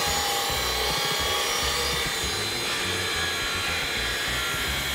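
Hikoki 36V brushless cordless circular saw with a 165 mm blade cutting through plywood: the steady whine of the motor under the rasp of the blade in the wood.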